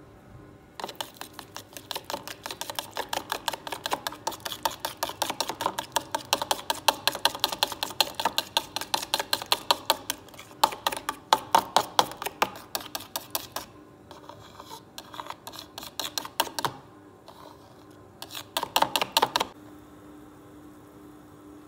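Metal utensil beating eggs in a bowl for an omelette: fast, even clicking as it strikes the bowl's sides. The beating stops about two-thirds of the way through, goes on in looser spells, and ends with one last short run of clicks near the end.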